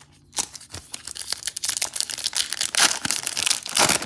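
Foil wrapper of a Magic: The Gathering set booster pack crinkling and tearing as it is opened, starting about half a second in and loudest near the end.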